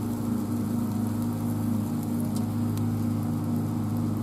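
Steady drone of a petrol lawn mower engine running nearby, with a few faint light ticks over it.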